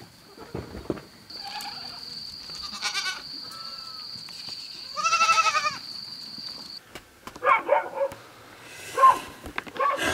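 Goats bleating in a pen, several separate calls, the loudest and longest about five seconds in and a quick run of shorter ones near the end.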